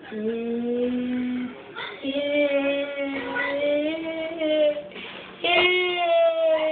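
A voice singing long, held notes in three phrases with short breaks between them.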